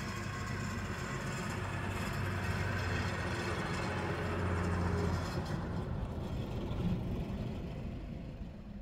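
Vintage IFA H6 bus's six-cylinder diesel engine running as the bus drives past. It grows louder until about halfway through, then fades away as the bus moves off.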